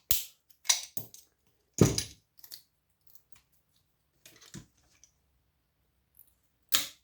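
Scattered clicks and clinks of small metal parts and a stripped power-supply circuit board being handled and set down, about seven separate knocks, the loudest about two seconds in.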